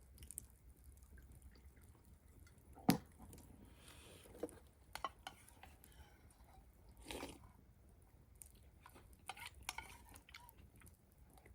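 Spoon and chopsticks clinking and knocking against bowls and a pot while eating: scattered light clicks, the sharpest about three seconds in, over a low steady hum.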